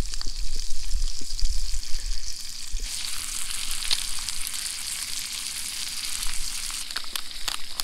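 Two whole trout frying in a pan, a steady sizzling hiss with fine crackles that grows fuller from about three seconds in. A low rumble sits under it for the first few seconds.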